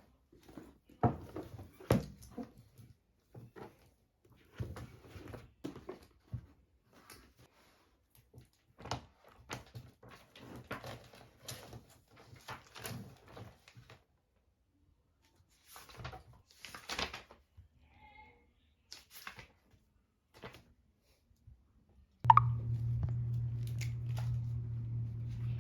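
Scattered light knocks and handling clicks of objects being moved about. About 22 seconds in there is a sharp click, and a steady low electrical hum starts up, as of an appliance being switched on.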